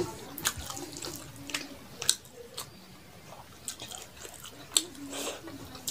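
Close-miked eating by hand: wet chewing and sharp mouth clicks and smacks, with the sticky squish of rice and curry being mixed with the fingers on a steel plate.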